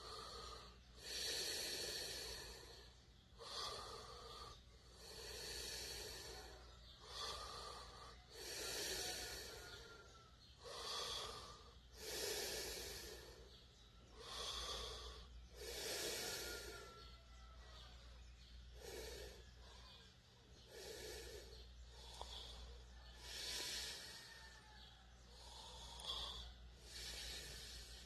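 A sleeping person snoring, with a rough, noisy breath roughly every two seconds.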